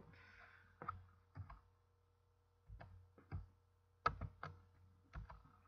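Faint, irregular clicking at a computer, about seven clicks in all, over a low steady hum.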